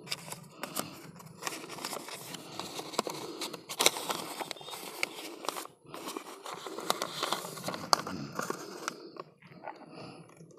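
A crinkly wrapper rustling and crackling as it is handled at close range, with many small clicks. It dies down about a second before the end.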